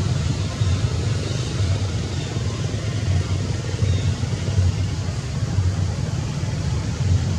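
Steady low rumbling background noise with a fainter hiss above it, unbroken and with no distinct events.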